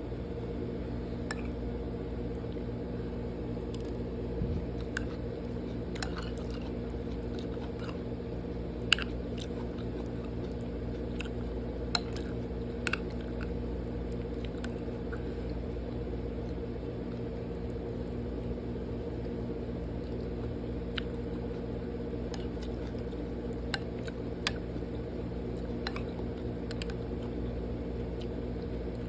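Close mouth sounds of a person eating: chewing and biting, with scattered sharp clicks, the loudest about nine and twelve seconds in, over a steady low hum.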